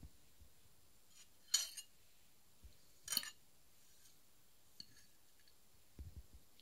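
A metal spoon clinking, twice, about a second and a half apart, with soft low bumps of handling near the start and near the end.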